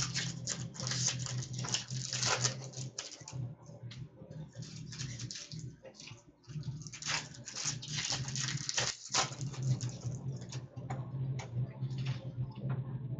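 Hockey card packs being handled and torn open: dense irregular crinkling of wrappers and clicking of cards, with a short lull about six seconds in, over a low steady hum.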